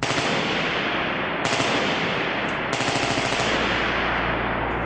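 M14 rifle fired on full automatic: a continuous, rapid stream of shots.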